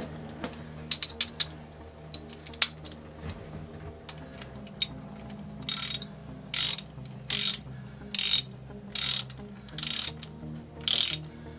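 Socket ratchet wrench tightening the mounting bolts of a marine diesel's fresh water pump. A few sharp clicks in the first seconds, then from about six seconds in a steady run of short ratcheting strokes, about seven of them, a little under a second apart.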